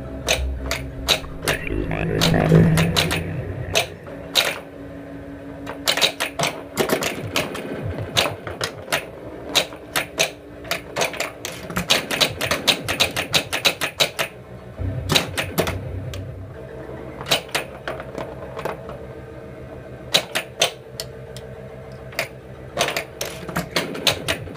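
1980 Williams Alien Poker pinball machine in play: rapid mechanical clacking of pop bumpers, solenoids and the ball striking the playfield, in flurries. The game's steady electronic tones run underneath.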